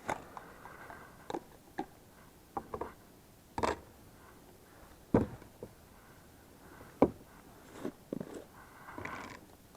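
Irregular knocks, clicks and scrapes of a cup, spoon and thermos being handled while coffee is made, about a dozen separate sounds, the sharpest about five and seven seconds in.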